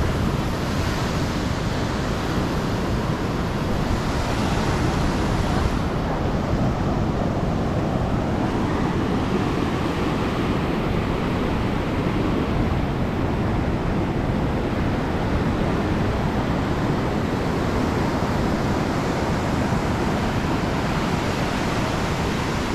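Ocean surf washing onto a sandy beach, with wind rumbling on the microphone; the hiss of the water swells up about a second in and again around four to five seconds in.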